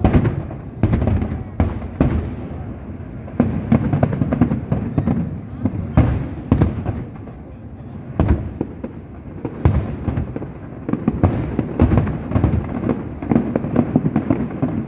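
A fireworks show's aerial shells bursting one after another: many sharp bangs and booms at irregular intervals, coming close together at the busiest moments.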